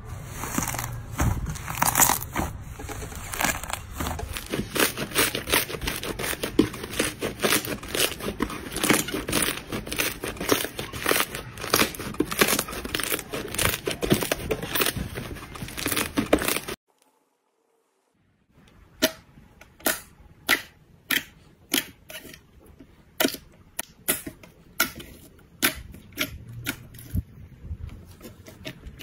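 Hands squeezing and tearing a large fluffy, stringy slime, with a dense run of soft crackles and tearing sounds. It cuts to a second or so of silence, then clear slime is pressed and stretched, giving single wet pops about once a second.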